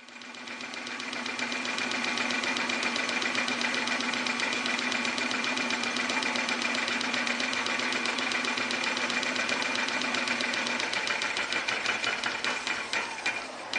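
Metal lathe running while a Scotch-Brite pad held on a stick polishes the bore of the freshly turned R8 adapter sleeve in the spindle: a steady mechanical hum with a fast, fine ticking. The sound builds over the first second or so, its low tone drops out a few seconds before the end, and a few clicks follow.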